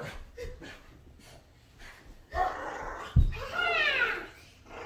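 Small dog's play noises during tug-of-war: a louder stretch about two seconds in, a sharp thump, then a run of short high cries falling in pitch.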